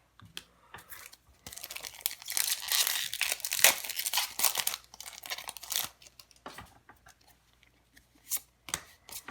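A Magic: The Gathering booster pack's foil wrapper being torn open and crinkled: a dense crackling tear lasting about four seconds, starting about a second and a half in, then scattered crinkles and light clicks.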